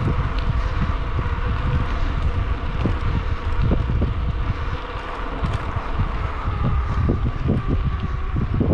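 Wind rushing over the microphone of a bicycle rider coasting fast downhill on a concrete path, a steady low rumble with constant fluttering gusts.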